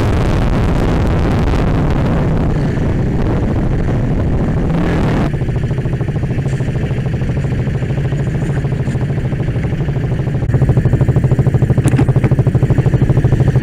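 Wind rushing over a bike-mounted camera on a moving motorcycle. After an abrupt change about five seconds in, a KTM Duke 200's single-cylinder engine runs at low speed with an even pulsing beat, which grows louder near the end.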